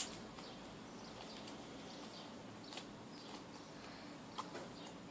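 Faint handling sounds of homemade slime being pressed into a small container: a sharp click at the start, then a few soft sticky clicks over low background hiss.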